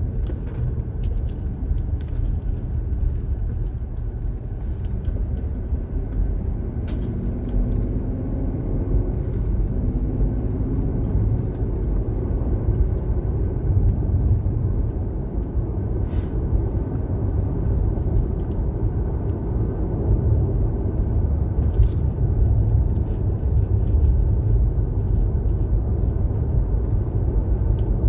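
Car driving along, a steady rumble of road and engine noise, with a few faint clicks and a brief rise in engine pitch partway through.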